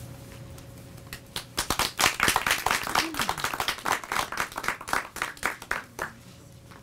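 Audience applauding with hand claps. The clapping starts about a second and a half in and dies away about a second before the end.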